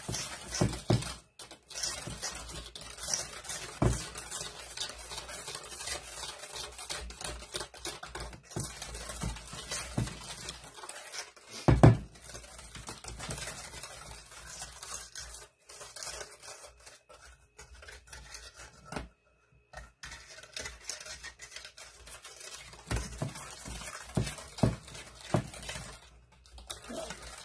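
Wire whisk beating cake batter in a stainless steel mixing bowl: a quick, continuous clatter and scrape of the wires against the metal. A single loud knock comes a little before halfway, and the whisking pauses briefly about two-thirds through.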